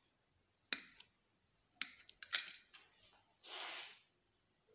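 Kitchen knife cutting through a baked fruit cake, the blade clicking against the ceramic plate beneath: three faint sharp clicks, then a short scrape later on.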